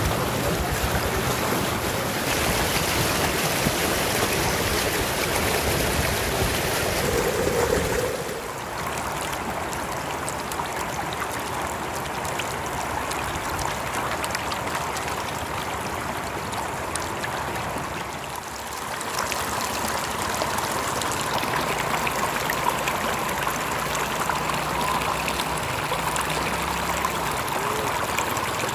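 Shallow brown floodwater rushing and splashing across a dirt road. The sound drops a little about eight seconds in and comes back up near the end.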